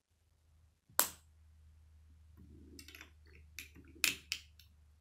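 Small plastic Lego pieces clicking and tapping as they are handled and pressed onto a brick-built model car: a sharp tap about a second in, a scatter of small clicks, then a louder snap about four seconds in.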